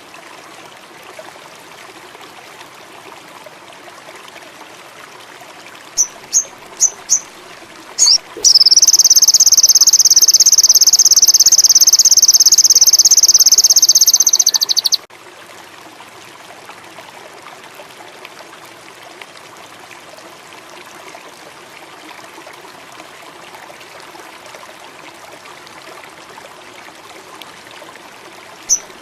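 Sogon indigo bird song used as a lure call: a few short, high chirps about six seconds in, then a loud, high, rapid trill held for about six seconds that cuts off sharply, with the chirps starting again near the end. Behind it runs a steady bed of running water and insect chirring.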